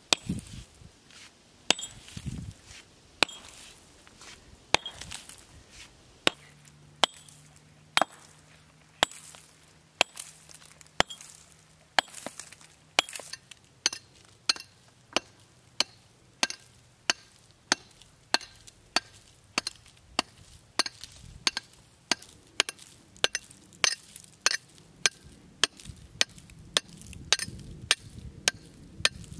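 Steel stone hammer and quarry pick striking a stone block, chipping and facing its surface: sharp strikes, spaced about a second apart at first, then a quick steady rhythm of about two a second through the second half.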